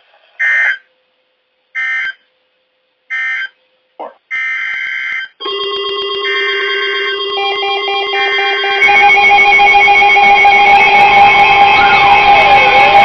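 NOAA Weather Radio emergency-alert data tones: three short screeching bursts, then a longer one, as one warning message closes and the next begins. From about five seconds in, several weather-alert receivers sound their alarms together: steady tones and beeping that grow louder about nine seconds in, with a siren-like wail rising and falling from about eleven seconds.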